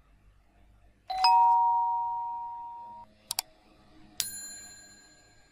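Subscribe-button overlay sound effect: a two-note electronic chime rising to the higher note and held for about two seconds, then two quick clicks, then a bright bell ding that rings out and fades.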